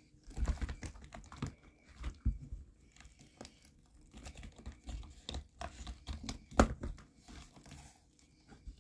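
Handling of resin dominoes: crinkling and rustling with scattered clicks as the hard pieces knock together, and one sharper knock about two thirds of the way through.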